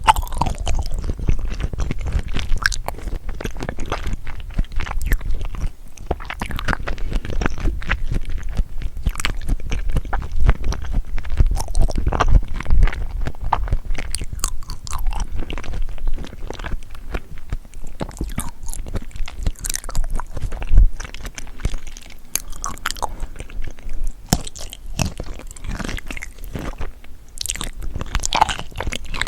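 Close-up chewing of seafood: a steady run of wet, crunchy bites and mouth clicks, irregular and continuous.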